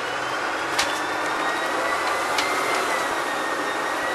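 Bus engine and drivetrain heard from the rear of the moving bus, a steady running noise with a thin high whine that shifts slightly in pitch. Two short clicks, about a second and two and a half seconds in.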